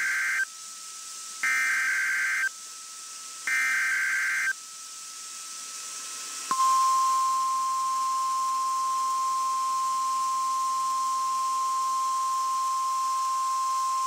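NOAA Weather Radio SAME header: three one-second bursts of harsh warbling data tones a second apart, the first already under way. About six and a half seconds in, the steady single-pitch 1050 Hz Warning Alarm Tone starts and holds. It comes over a narrowband-FM receiver stream and is the test signal of a required weekly alert test.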